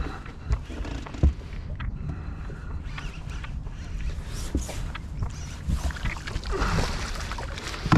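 Water lapping and slapping against a fishing boat's hull, with irregular low thumps and a few short knocks.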